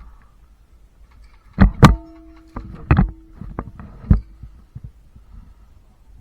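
A series of about seven sharp cracks at uneven intervals. The two loudest come close together about a second and a half in, and a faint steady ringing tone hangs on for about three seconds after them.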